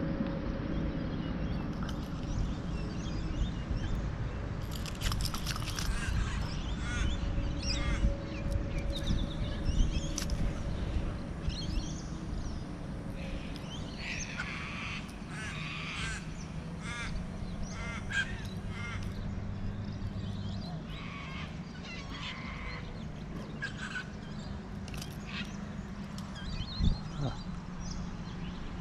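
Birds calling, with crow-like cawing calls; a run of repeated calls comes about halfway through. A steady low rumble runs underneath.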